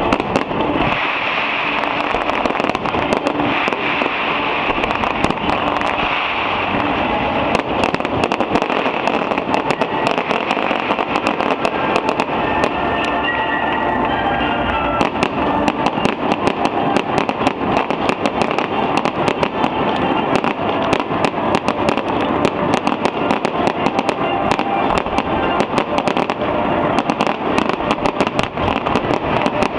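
Fireworks display: a dense, unbroken run of bangs and crackles from exploding shells.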